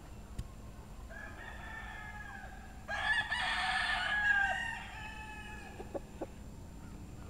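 Hatch-type gamecock crowing twice: a fainter crow about a second in, then a louder cock-a-doodle-doo around the middle lasting about two seconds.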